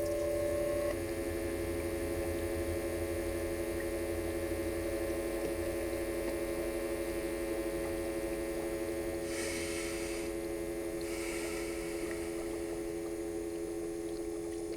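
A steady hum of several held tones from a machine-drone sound effect. A low rumble drops away about a second in, and a burst of hiss comes from about nine to eleven seconds in.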